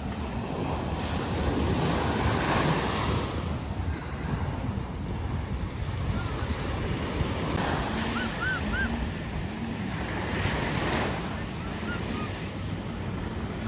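Small waves breaking and washing up on a sandy beach, with wind buffeting the microphone; the wash swells twice. Through the middle, a faint personal watercraft engine rises and falls in pitch out on the water.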